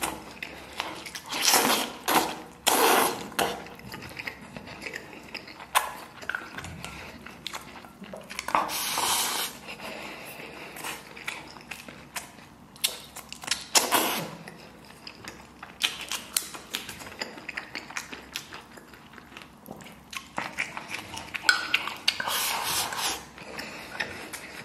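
Close-miked chewing and slurping of braised pork belly and rice. A handful of louder wet slurps come every few seconds, with small wet mouth clicks in between.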